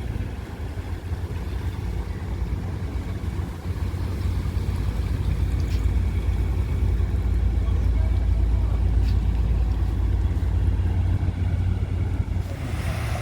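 Boat engine running steadily with a low drone, growing a little louder after about four seconds.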